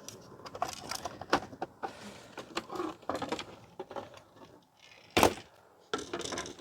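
Plastic vacuum-cleaner parts being handled and worked apart during a teardown: a run of irregular clicks and clatters, with one louder, sharp knock about five seconds in.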